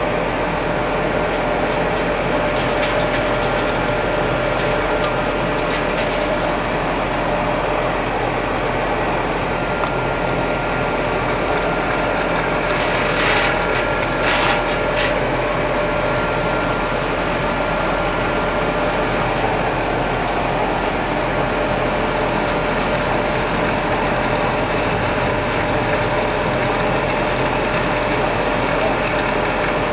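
Colloid mill running steadily while grinding peanuts into peanut butter paste: a dense mechanical whir with a steady hum. A few brief louder hissing bursts come about 13 to 15 seconds in.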